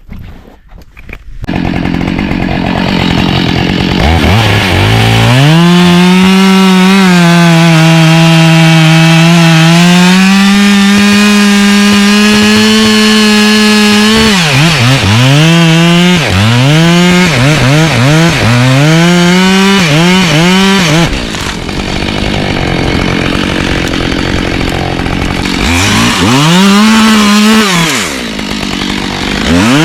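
Husqvarna professional two-stroke chainsaw running at wide-open throttle, cutting wood. It comes up to full revs about five seconds in and holds steady under cut for about eight seconds, then revs up and drops back over and over through a run of short cuts, typical of cutting through limbs.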